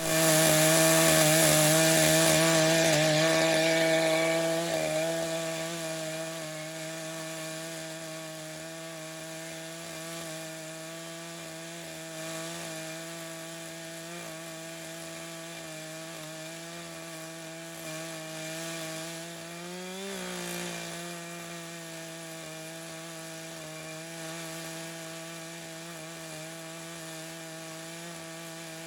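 Echo CS-590 two-stroke chainsaw with a ripping chain running at steady high throttle, ripping a slab lengthwise from a red oak cant in a homemade chainsaw mill. It is louder with more hiss for the first four seconds, then holds a steady engine note, with a brief rise in pitch about twenty seconds in.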